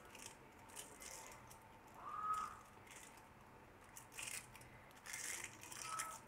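Aluminium foil crinkling faintly in short rustles as it is folded and pressed by hand around a wrap, with a brief faint tone about two seconds in.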